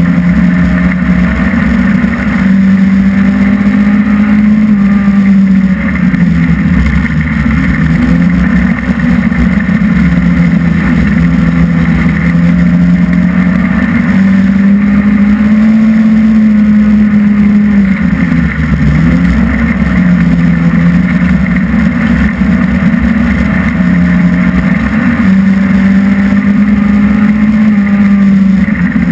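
Hobby stock dirt-track race car's engine running hard under racing load, heard from inside the cockpit, loud and continuous. Its pitch climbs and holds for a few seconds, then drops back as the throttle comes off, in a cycle that repeats roughly every ten to twelve seconds around the laps.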